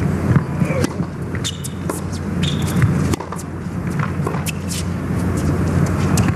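Tennis rally on a hard court: several sharp racket strikes and ball bounces a second or so apart, over a steady low background hum.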